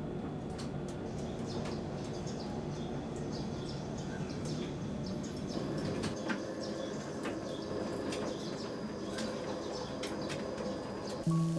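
Steady rustling, fluttering noise with scattered light clicks and ticks.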